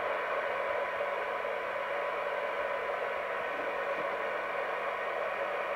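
Rotel RVC240 FM CB receiver's audio: steady hiss with a faint steady test tone buried in it, the receiver being fed a very weak signal near its sensitivity limit during alignment.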